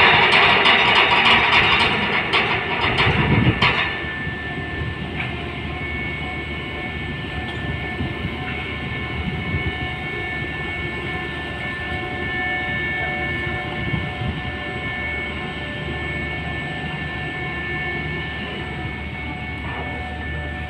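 Ro-ro ferry machinery running with a steady drone, a low hum and a few steady whining tones. Louder rushing noise with some knocks fills the first four seconds before settling to the even drone.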